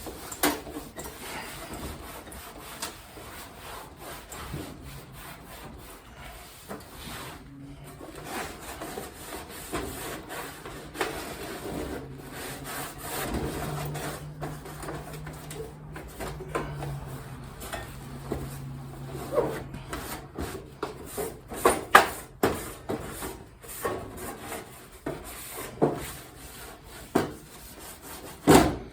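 Paper towels rubbing and wiping over a kerosene heater, an irregular scrubbing broken by scattered knocks, with a few louder knocks in the last third.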